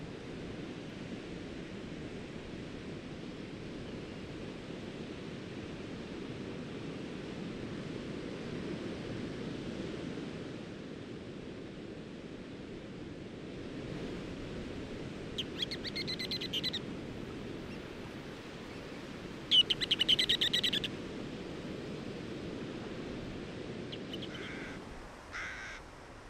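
Ruddy turnstone giving rapid chattering rattle calls, twice, about fifteen and twenty seconds in, the second louder, with a few fainter short calls near the end. Under them runs a steady low rush of surf that fades away near the end.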